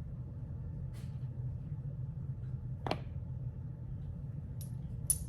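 Small clicks and taps from handling a metal fidget toy and its parts, ending in a couple of sharp metallic ticks, over a steady low room hum.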